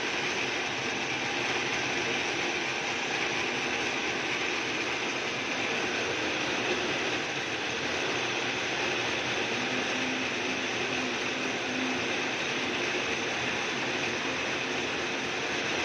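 Drill press running steadily as it bores a hole, a continuous even mechanical whir with a faint steady hum joining in partway through.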